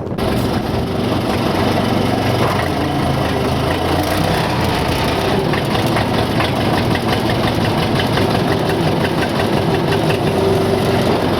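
Four-cylinder diesel engine of a Case 580C loader-backhoe running steadily with a diesel clatter as the machine is moved into position.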